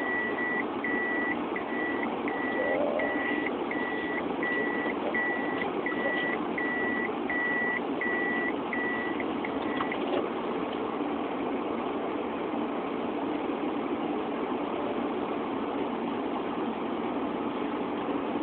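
A vehicle's reversing alarm beeping at an even pace, about three beeps every two seconds, stopping about ten seconds in, over the steady running of engines.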